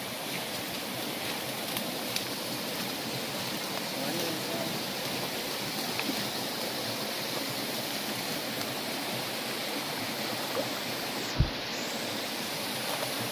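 Steady rushing of shallow stream water around a man wading knee-deep in it, with a brief low thump near the end.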